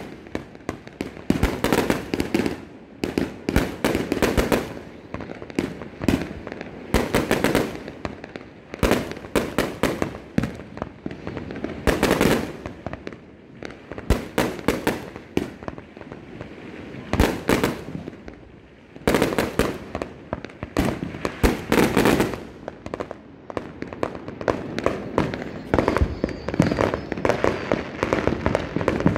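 Fireworks going off without a break: dense strings of sharp cracks and pops, with louder clusters of bangs every few seconds.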